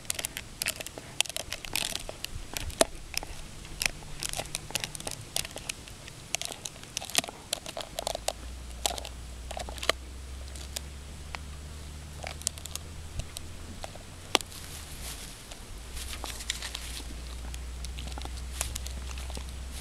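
German Shepherd gnawing on a large bone: irregular crunches, scrapes and sharp clicks of teeth on bone. A low steady hum sits underneath from about eight seconds in.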